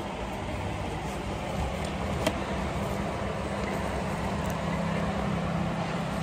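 Steady background hum and noise of a shop, with a single sharp click about two seconds in.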